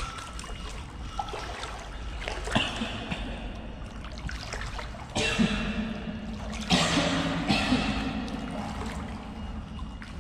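Shallow water trickling and splashing, with three louder splashes, about two and a half, five and nearly seven seconds in.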